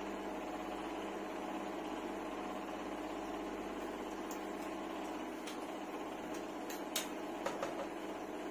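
A steady mechanical hum in a small room, with a few light clicks about five and a half to seven and a half seconds in, the sharpest about seven seconds in.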